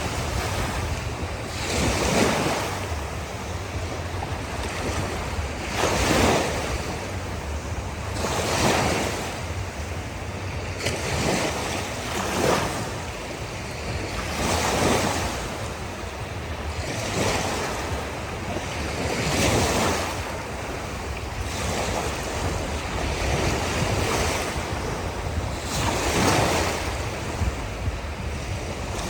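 Ocean waves breaking and washing on a shore: a continuous surf wash that swells every two to four seconds as each wave comes in.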